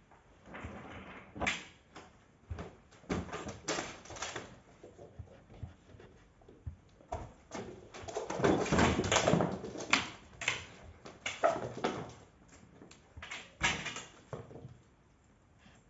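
Irregular knocks and thumps of play on a wooden floor, with a denser run of footsteps about eight to ten seconds in.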